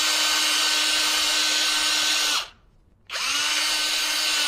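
Electric drill with a 3/32-inch bit running at a steady whine while drilling holes in a plastic film canister. It stops about two and a half seconds in, then spins back up with a rising pitch about half a second later and runs steadily again.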